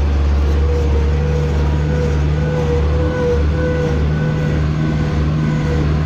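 Tractor engine running steadily under load while driving on the road, heard from inside the cab, with a wavering whine over the engine noise.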